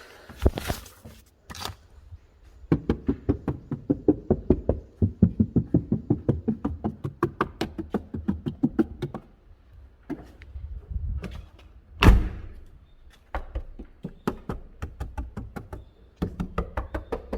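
Rapid, even knocking on a car's trunk, about five knocks a second in long runs, with one heavier thump about twelve seconds in, as the trunk is checked for a rattle.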